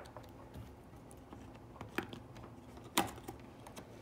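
Light clicks and taps from fingers handling an opened iPhone and its battery on a wooden table, the loudest click about three seconds in.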